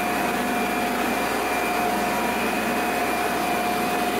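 Large electric centrifugal aeration blowers running, pumping air to a wastewater pre-aeration tank: a loud, steady rushing drone with a constant whine on top.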